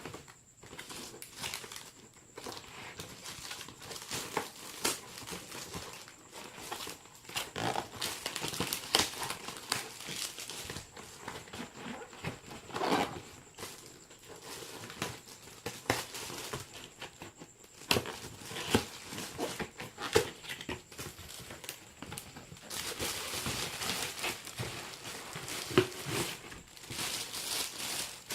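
Packaging crinkling and rustling by hand as a bicycle helmet is unwrapped, with many short irregular crackles.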